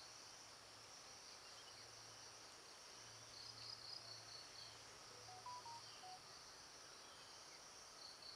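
Quiet forest ambience: an insect chirping in runs of rapid high-pitched pulses, with a few short soft whistled notes about five seconds in.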